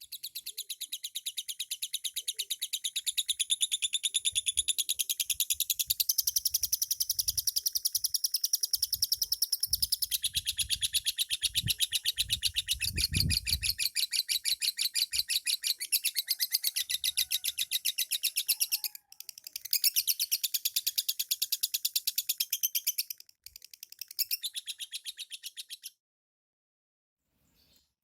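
Lovebird ngekek: a long, rapid, unbroken run of high chirping trills. This is the song whose duration Indonesian keepers rate. It breaks off briefly twice near the end and then stops.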